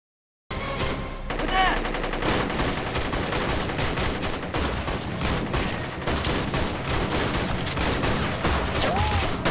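Dense, continuous rifle and machine-gun fire of a battle, starting abruptly about half a second in.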